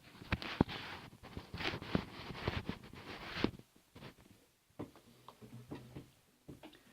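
Handling noise: rustling with scattered clicks and knocks, dense for the first three seconds or so, then a few faint clicks and taps.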